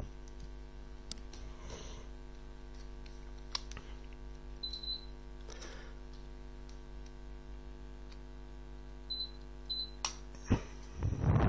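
Low, steady electrical hum with many overtones, as picked up by a recording microphone, with a few faint clicks scattered through it. A couple of louder short sounds come near the end.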